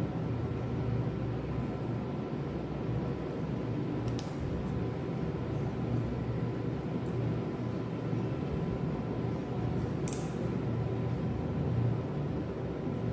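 A steady low machine hum, like a fan or air conditioner running, with two brief sharp clicks, one about four seconds in and one about ten seconds in.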